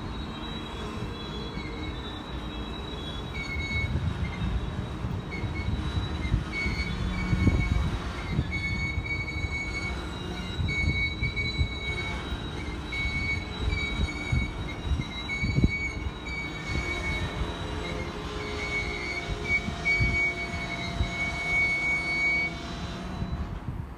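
Freight train of autorack cars rolling slowly past, its steel wheels squealing on and off in high, wavering tones over a low rumble of wheels and couplers, with a few sharp knocks. The squeal stops shortly before the end.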